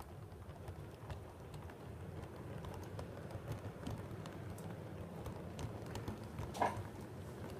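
7mm-scale model railway coaches rolling past on metal track: a steady low rumble of the wheels with rapid irregular clicking as they cross rail joints and pointwork, and a brief louder squeak near the end.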